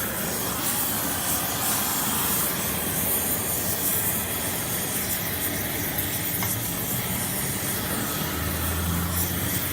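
Torch flame hissing steadily as it burns old epoxy resin filler out of a sculpture's foot, clearing it for welding. A low hum joins near the end.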